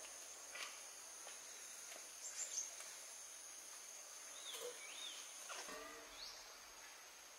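Faint rural ambience: a steady high-pitched insect drone with scattered bird calls, including quick rising chirps a couple of seconds in and a wavering whistle about halfway through.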